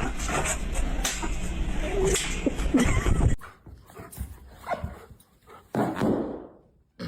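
A dog whimpering with a few short yips over steady background noise. The noise cuts off abruptly about three and a half seconds in, and a few short, quieter sounds follow.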